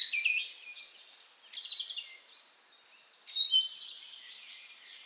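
Several songbirds chirping and singing together, a busy mix of quick, high calls that thins out near the end.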